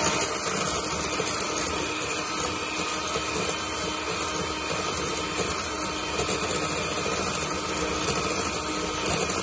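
Electric hand mixer running at one steady speed, its beaters whisking egg whites and sugar in a stainless steel bowl: meringue being beaten toward stiff peaks.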